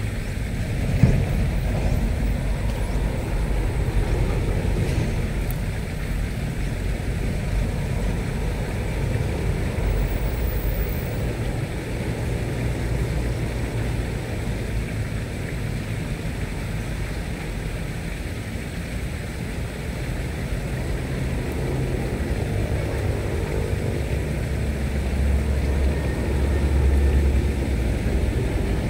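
Small boat's engine running steadily, a continuous low rumble that grows a little louder near the end.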